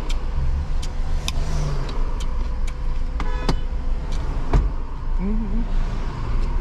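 Road and engine noise inside a moving car's cabin: a steady low rumble, with scattered light clicks and one short pitched tone a little past the middle.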